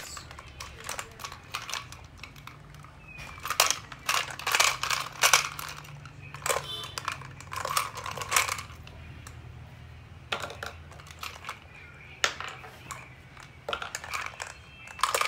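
Irregular plastic clicks, knocks and rattles from a small plastic toy gumball machine being handled and turned over, its foil-wrapped candy balls shifting inside.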